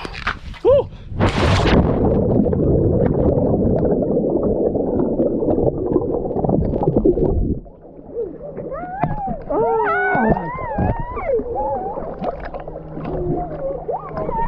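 A person jumps feet-first into a river holding an action camera: a short splash about a second in, then several seconds of loud underwater bubbling and rushing as the camera goes under. The rushing cuts off abruptly about seven and a half seconds in as he surfaces, leaving water lapping against the camera and some wavering cries.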